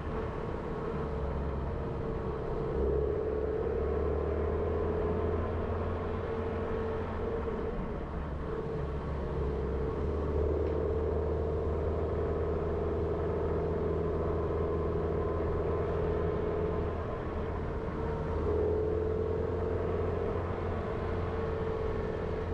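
Jeep Renegade driving, its engine and tyres making a steady low drone. A humming tone in it dips and rises a little in pitch with engine speed a few times.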